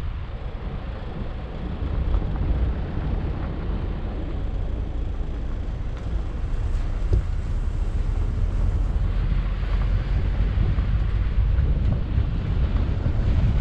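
Wind rushing over the microphone of an action camera on a moving car, heard as a steady low rumble with the car's road noise underneath.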